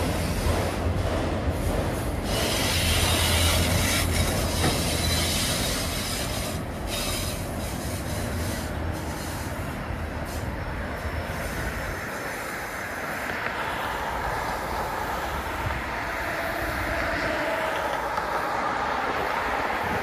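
Empty autorack freight cars rolling past, steel wheels rumbling and clattering on the rails with some wheel squeal. The low rumble drops away a little over halfway through as the last cars go by.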